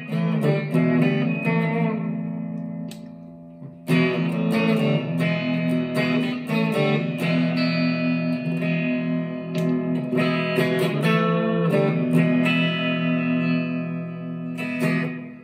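Harley Benton SC-450 Plus single-cut electric guitar being played, picked chords and notes ringing out. A chord is left to fade about two seconds in, then playing starts again about four seconds in and carries on.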